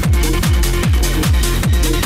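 Techno music at a rave, played loud: a steady four-on-the-floor kick drum, about four beats a second, over deep bass, with hi-hats above.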